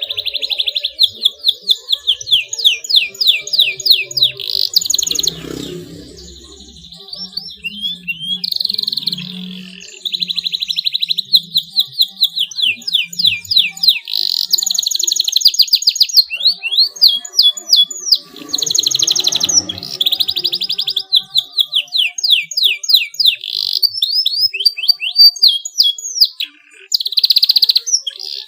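Domestic canary singing a long, loud, high-pitched song of rapid trills and quick rising and falling sweeps, changing phrase every few seconds with only brief breaks.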